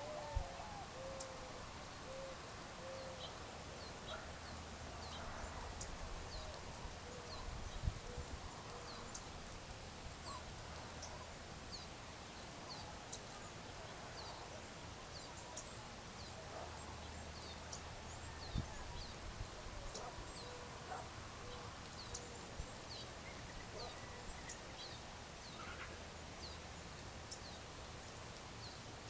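Evening outdoor ambience with birds calling: a short high chirp repeats about once a second throughout. A run of low, short calling notes comes in the first few seconds and again around the middle. Under it runs a low hum that comes and goes.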